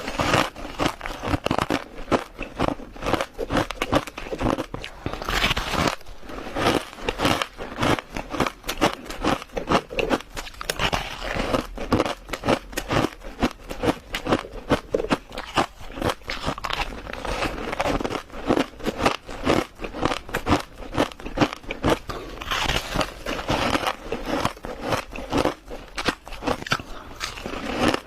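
Close-up crushed ice being bitten and chewed: a dense, irregular run of sharp crunches, several a second.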